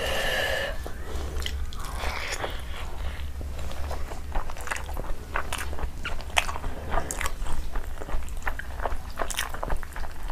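Close-miked chewing of a mouthful of rice, with many irregular wet mouth clicks and smacks, and fingers squishing curry-soaked rice.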